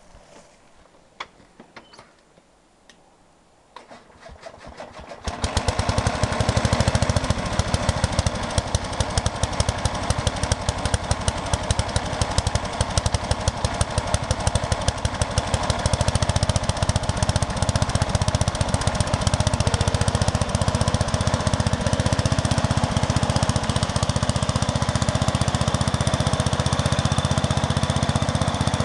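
A Sears Suburban 12 garden tractor's single-cylinder Briggs & Stratton engine comes up to speed about four to five seconds in. It then runs steadily with a fast, even firing pulse, pulling a load of three skidded logs.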